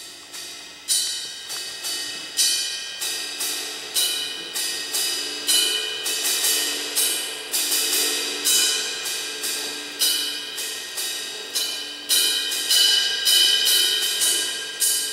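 Percussion ensemble playing: metallic percussion struck about twice a second, each hit ringing on over held tones, starting out of quiet.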